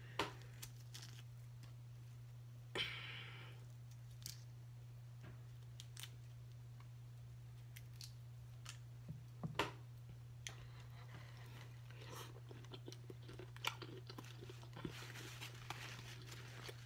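Close-up eating sounds: boiled seafood being picked apart by hand, with scattered small clicks, crackles and chewing over a steady low hum. There is a short rustle about three seconds in and more rustling near the end.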